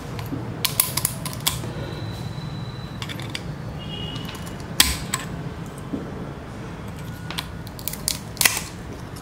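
Spiral seashell being nipped apart with metal cutting pliers: a series of sharp cracks and snaps as pieces of the shell break off, about eight in all, the loudest about five seconds in.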